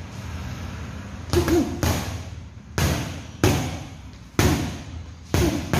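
Boxing-gloved punches landing on a hanging teardrop punching bag: about six sharp thuds, the first about a second in, then one every half second to a second.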